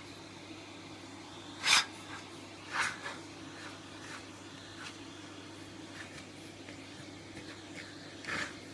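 A pug snorting in three short bursts, the first about two seconds in and the last near the end, over a faint steady hum.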